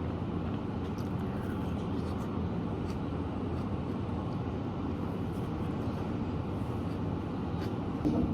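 Steady low background rumble at an even level, with a few faint clicks scattered through it.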